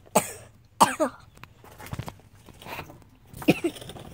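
A person coughing and clearing their throat in short bursts: a few coughs in the first second or so, and another about three and a half seconds in.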